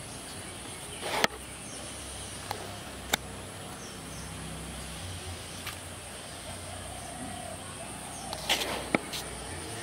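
Steady high-pitched insect chirring in the background, with short sharp knocks or splashes about a second in, around three seconds in, and a cluster near the end, which are the loudest sounds.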